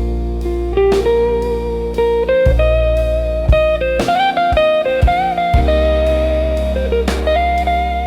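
Slow blues instrumental: an electric guitar playing sustained lead notes with bends, over bass and drums.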